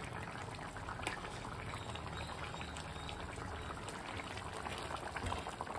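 Thick mutton pepper curry gravy bubbling steadily in a kadai as it is left to boil down and thicken.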